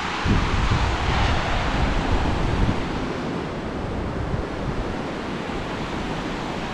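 Surf breaking and washing up onto a sandy beach in a steady rushing hiss, with wind buffeting the microphone in low rumbling gusts, strongest in the first second or so.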